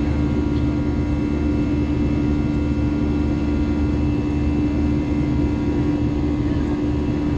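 Airbus A321's jet engines and airflow heard from inside the cabin during the climb after takeoff: a steady drone with one strong hum and several fainter steady tones above it.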